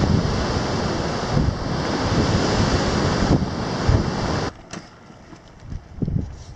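Wind rushing over the camera microphone, a loud steady roar of noise. It cuts off abruptly about four and a half seconds in, leaving a much quieter background with a few faint clicks.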